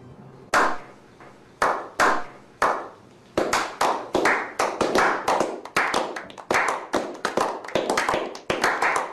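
Slow clap from a small group of men: single claps about a second apart, quickening after about three seconds into fast, overlapping applause from several pairs of hands.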